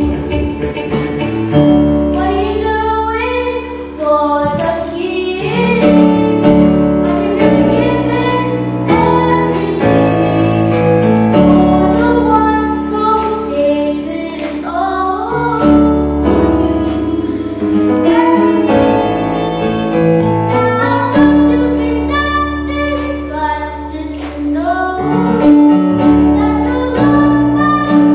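Music: female and children's voices singing a church song over steady instrumental accompaniment with a sustained bass line.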